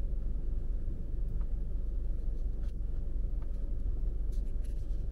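Steady low rumble of a car's running engine and road noise heard from inside the cabin as the car moves slowly, with a few faint clicks.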